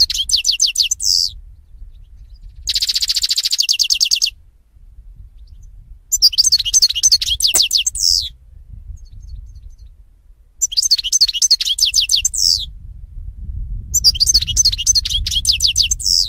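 European goldfinch singing: phrases of quick, high twittering notes, each ending in a downward slur, repeated every few seconds. About three seconds in, one phrase is a dense, buzzy trill.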